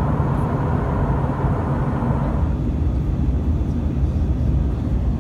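Steady cabin noise of an Airbus A320-232 descending on approach: a low engine and airflow rumble from its IAE V2500 turbofans. A higher hiss over it fades out about halfway through.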